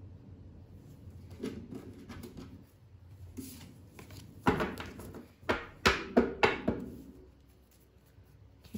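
Tarot cards being handled on a tabletop: light rustling, then about five sharp taps and slaps of cards against the table around the middle.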